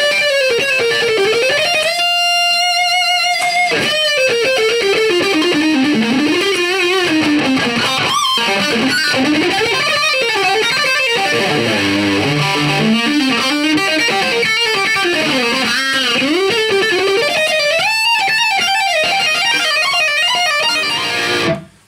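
Electric guitar played through a Carlos Ramírez RP tube amplifier head with two KT88 power tubes, on its high-gain setting: fast distorted lead lines with one long sustained note about two seconds in. The playing stops suddenly near the end.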